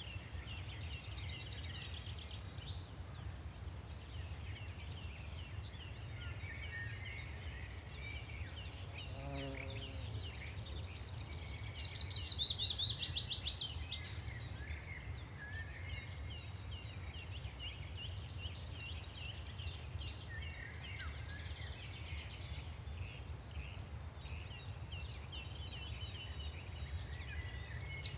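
Several songbirds chirping and singing over each other. About twelve seconds in, a louder song of quick notes runs downward in pitch for about two seconds. A steady low rumble sits underneath.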